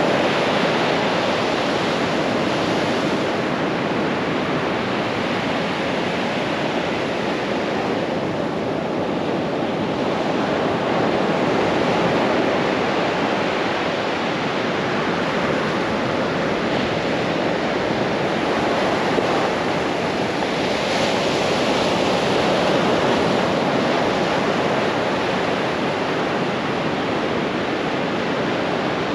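Ocean surf breaking and washing up a sand beach: a steady rush of water that swells and eases gently as each wave comes in.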